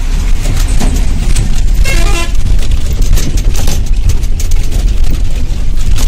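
Bus driving on an unpaved road, heard from inside the cabin: a loud, steady rumble with constant rattling. A vehicle horn gives one short toot about two seconds in.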